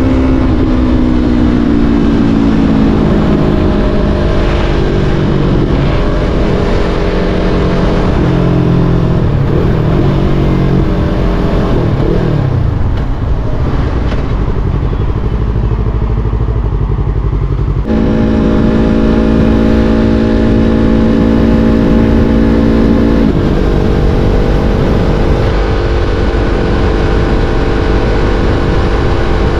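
Yamaha R3's 321 cc parallel-twin engine under way, its note falling and rising as the revs change through the gears, over a steady low rushing noise. The engine note jumps abruptly about eighteen seconds in, then holds fairly steady.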